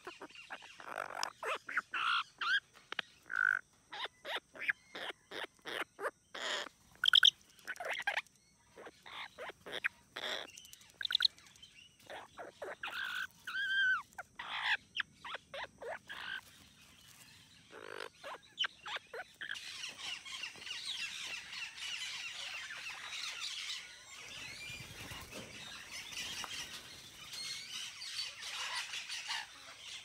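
Amazon parrots in an aviary calling: a string of short, separate squawks and chirps, some rising and falling in pitch. About two-thirds of the way through, a dense, continuous chatter takes over.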